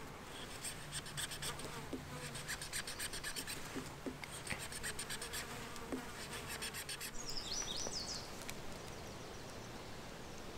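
Mora knife blade sawing back and forth through green wood in quick, light strokes, with a fly buzzing nearby as a steady hum. The carving stops about seven seconds in, and a bird chirps briefly.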